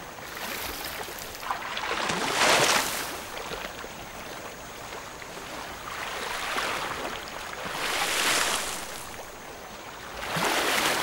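Elephants wading through shallow water, the water splashing and sloshing around their legs in repeated swells about a second long.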